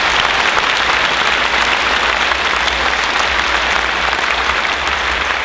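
Audience applauding: many hands clapping steadily in a hall, easing off slightly toward the end.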